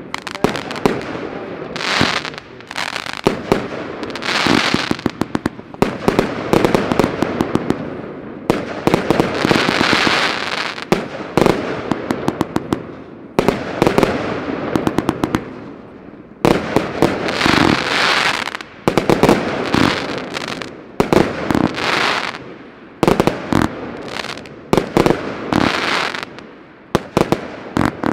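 Geisha Tournament Box, a 432-shot compound fireworks battery, firing: sharp shots and bursts come singly and in fast volleys, between stretches of hissing and crackling effects that swell and die away.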